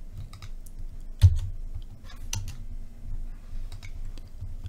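Irregular clicks of a computer mouse as menu commands are picked, the loudest about a second in, landing with a dull thump.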